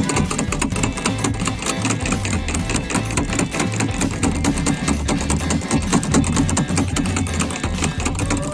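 A small engine running with a fast, steady clatter.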